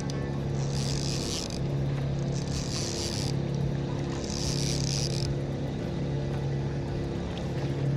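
Boat motor running at a steady low hum, with bursts of hiss that come and go about every second and a half.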